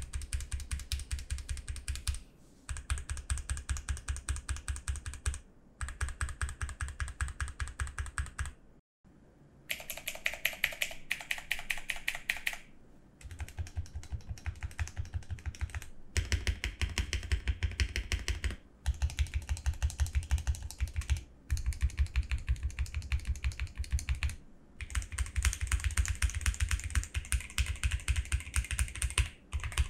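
Mechanical keyboard with linear Otemu Black switches being typed on fast in runs of rapid key clicks with brief pauses between them. The switches have been lubed without opening them, by dripping lube into the gaps in each switch housing.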